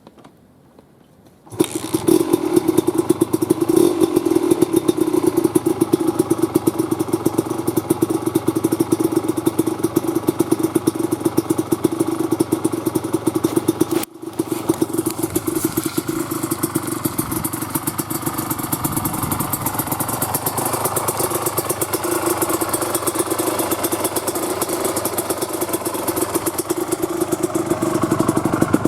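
Kawasaki KMX 200's single-cylinder two-stroke engine running, through an aftermarket exhaust. It comes in about a second and a half in, with a short break about halfway through.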